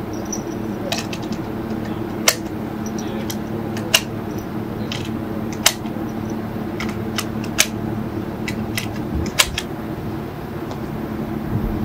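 .308 Winchester cartridges being pressed one at a time into a rifle magazine, each seating with a sharp click, the loudest roughly every two seconds with fainter clicks between. Underneath runs the steady hum of a large fan.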